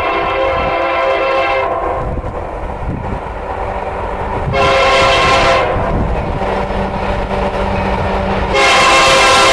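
Union Pacific freight locomotive horn sounding for a grade crossing: a long blast ending about two seconds in, a short blast about five seconds in, and another long blast starting near the end. This is the long-long-short-long crossing warning. The locomotives' low engine rumble carries through the gaps.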